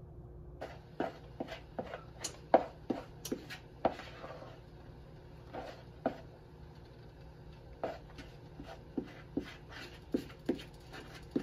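Things being handled on a kitchen counter: irregular light clicks and knocks, busiest and sharpest in the first few seconds, then sparser, over a faint steady low hum.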